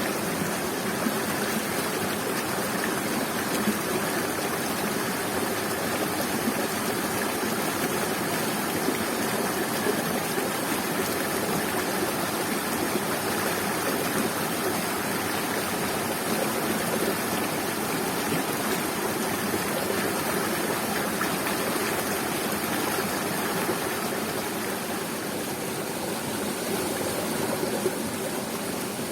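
Waterfall and river water rushing, a steady even roar with no breaks.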